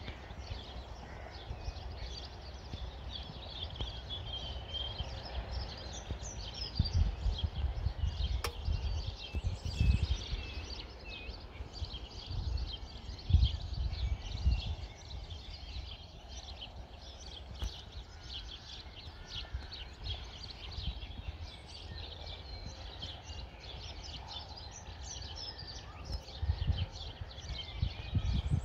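Small birds chirping and singing throughout, with several irregular low rumbles, the loudest a few seconds in, around the middle and near the end.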